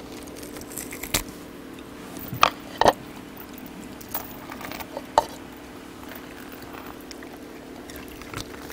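Young Jindo dogs eating boiled pork: chewing and biting with a few sharp clicks, the loudest two about two and a half and three seconds in, over a steady hum.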